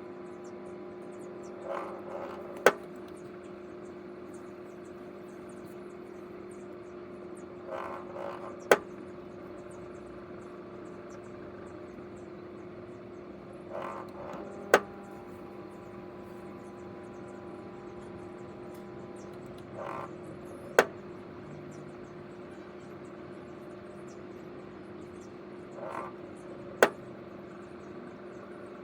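Microwave oven running with a steady hum, while metal energy-drink cans inside arc. About every six seconds a brief crackle leads into a single sharp, loud snap.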